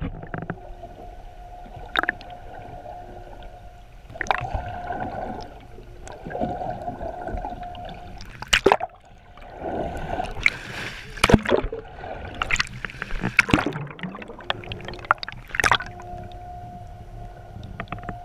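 Heard underwater just below the surface: the steady whine of a boat's engine and propeller carried through the water, fading in and out, broken by bubbly gurgling and several sharp splashes as the camera breaks and re-enters the surface.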